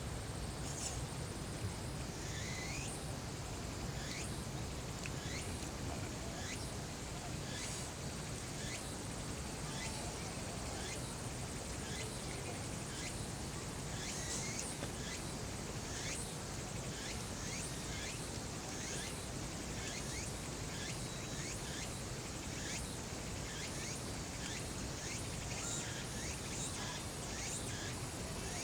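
Outdoor ambience: many short, high calls falling in pitch repeat about once a second over a steady low background rumble.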